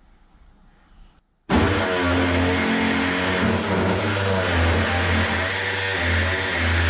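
Pneumatic reciprocating body saw cutting the sheet-steel rear fender: a loud, steady buzzing hiss that starts abruptly about a second and a half in, after a faint hiss of air.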